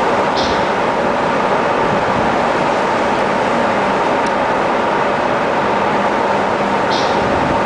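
Steady, loud machinery hum and rumble of an icebreaker working through pack ice, with ice grinding against the hull. Two brief high squeaks come about half a second in and again near the end.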